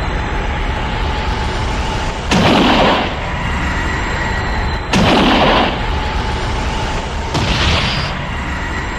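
Cartoon fight sound effects: a steady low rumble with a thin high whine, broken by three loud blasts, each about half a second long and about two and a half seconds apart.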